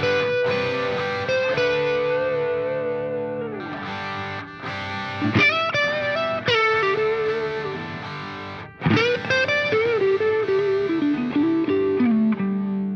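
Background music: a distorted electric guitar playing a lead line of sustained, bending notes in several phrases, ending on a long low note.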